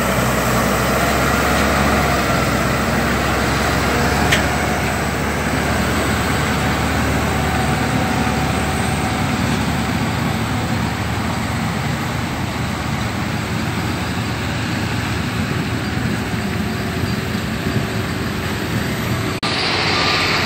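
Volvo FH 440 truck's inline-six diesel engine pulling a tipper trailer up a wet dirt track, running steadily and easing slightly as it moves away; the engine sound cuts off abruptly about a second before the end.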